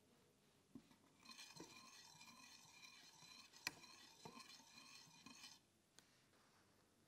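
Metal wire whisk beating a liquid spice marinade in a glass bowl, its wire loops clinking and ringing against the glass, with one sharper clink about halfway through. The whisking starts about a second in and stops about four and a half seconds later.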